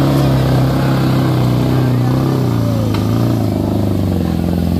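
Heavy vehicle's diesel engine working hard at low revs on a steep climb: a steady low drone that sags slightly in pitch about halfway through.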